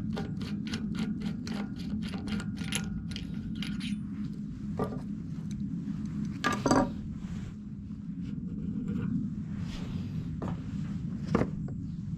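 Rear hub of a bicycle wheel, an American Classic hub whose ratchet has failed, clicking as it is turned by hand: a quick run of metallic ticks, about five a second and slowing over the first three seconds. After that come a few scattered clicks and clinks of parts being handled, over a steady low hum.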